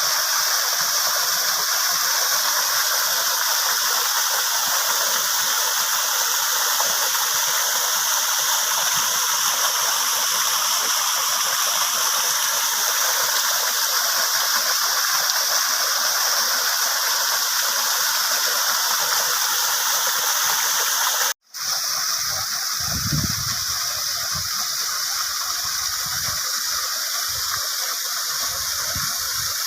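Rain-fed waterfall running full after recent rains: a steady rushing and splashing of falling water. It cuts out for an instant about 21 seconds in, then goes on with a few low rumbles mixed in.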